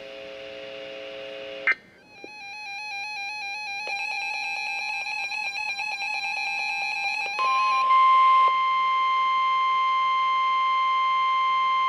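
Electronic alert tones from a weather radio broadcast: a soft steady chord and a click, then several seconds of warbling electronic tones. About eight seconds in, a loud steady tone of about 1 kHz starts and holds: the NOAA Weather Radio 1050 Hz warning alarm tone that comes before a warning is read.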